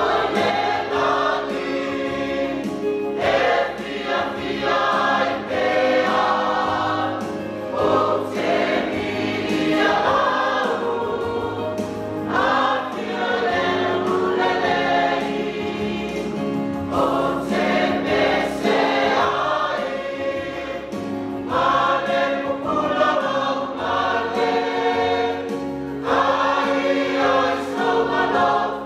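A church choir singing a worship song in parts, over a low accompaniment whose bass notes change in steps.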